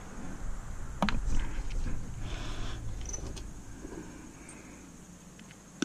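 Handling noise from taking apart a stainless steel appliance: a sharp metallic click about a second in, then scattered clinks, knocks and rustling that fade toward the end.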